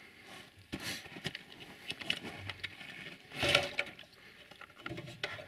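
Scattered light clicks and rustles of hands handling a tractor battery's cables and terminal clamps, with a louder rustle about three and a half seconds in.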